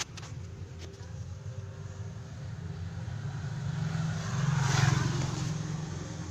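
Aircon blower fan motor humming steadily on mains power, the hum of a motor that is stuck. The hum swells, with a rushing noise, to its loudest about two-thirds of the way through, then eases back.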